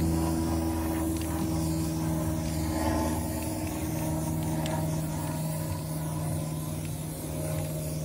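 An engine idling steadily nearby, a low even hum that carries the whole time, with the hiss of an aerosol spray can being sprayed on and off over it.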